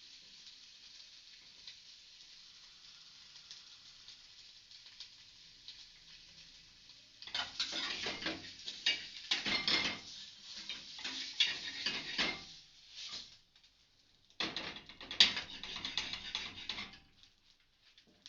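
Bacon sizzling with a faint, even hiss in a hot pan without oil. About seven seconds in, a utensil starts scraping and clattering against the pan in two spells of several seconds each, the second starting after a short pause.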